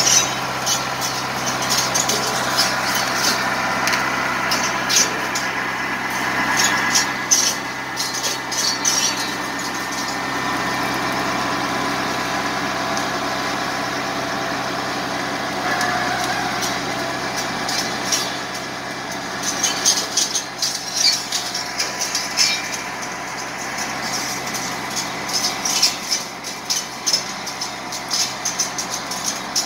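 Valtra 785 tractor's diesel engine running steadily, driving a boom-mounted rotary saw head. Around 7 seconds in, and many times from about 20 seconds on, sharp crackles and snaps as the spinning blades cut into branches and leaves.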